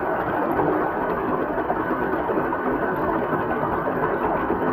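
Shallow creek water rushing and splashing as an RC crawler truck drives through it, with the steady whir of the truck's electric motor and gears mixed in.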